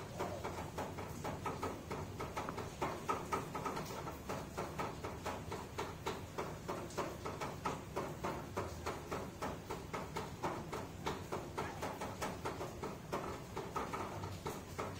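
Newborn baby monkey giving soft squeaks over a quick run of light taps, about four a second.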